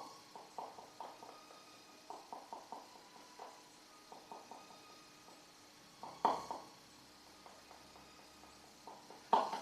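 Stirrer clicking and scraping against a bowl while glue, soap and colouring are stirred together: quick runs of faint taps, with two louder knocks about six seconds in and near the end.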